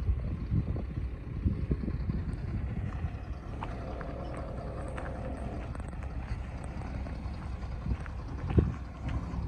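A steadily running engine under gusty wind noise on the microphone, with one sharp knock about 8.5 seconds in.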